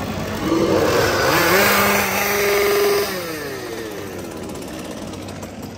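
Two-stroke chainsaw revved hard: its pitch climbs, holds high and steady for about two seconds, then drops back toward idle as the throttle is released.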